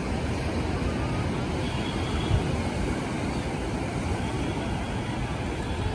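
Steady low wind rumble buffeting the microphone over the rush of breaking surf, with one brief bump a little over two seconds in.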